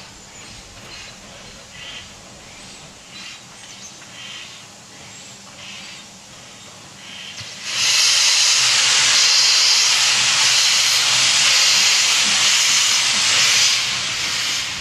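Steam locomotive hissing softly with a few faint puffs, then about eight seconds in a loud hiss of escaping steam starts and holds for about six seconds before easing off.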